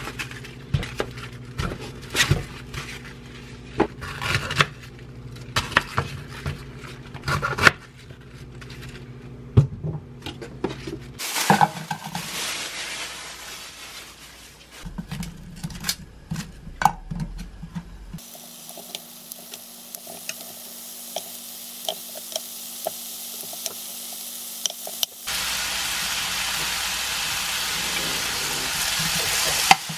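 Kitchen prep clatter: bok choy and its plastic wrap being handled, with scattered sharp taps and clicks. Then thin slices of beef brisket frying in a nonstick pan, a light crackle that turns into a steady, louder sizzle about 25 seconds in.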